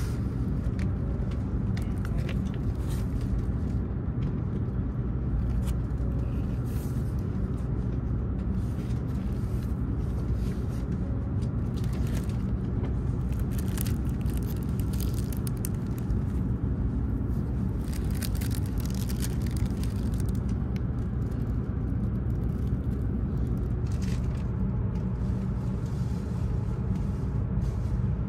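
Steady low rumble of a Shinkansen bullet train's cabin in motion, with scattered short crinkles and rustles of plastic wrapping and paper as a bento and its chopsticks are unwrapped.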